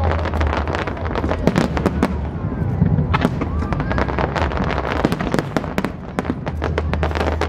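A rapid barrage of aerial firework shells bursting, many sharp bangs and crackles close together over a continuous low rumble.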